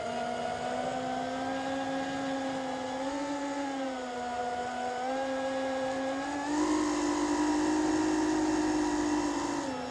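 FPV quadcopter's motors and propellers running with a steady pitched whine that shifts pitch in small steps, then jumps higher and louder about six and a half seconds in and drops back near the end.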